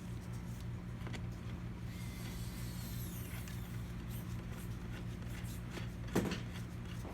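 Faint clicks and taps of small parts being handled over a steady low hum, with one louder knock about six seconds in.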